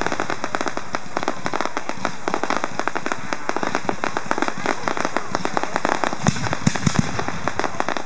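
A fireworks display: dense, rapid crackling from aerial shells and crackling stars. Several deeper booms of bursting shells come about six to seven seconds in.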